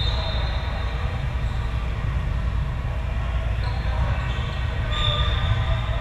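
Steady low rumble of a large indoor sports hall, with a few brief high squeaks of sneakers on the court floor.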